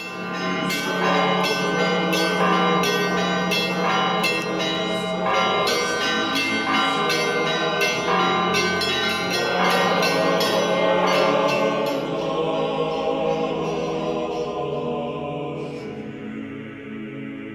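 Church bells ringing in a fast, busy peal of many overlapping strikes over a steady low hum. The strikes thin out over the last few seconds and the ringing dies away.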